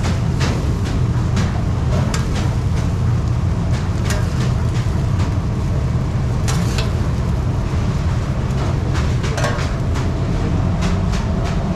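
Metal spatula scraping and clicking on a steel flat-top griddle as sausage slices are turned and scooped, over a steady low kitchen rumble.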